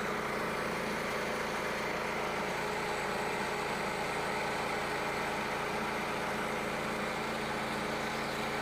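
Portable bandsaw sawmill's small gas engine running steadily at an even pitch.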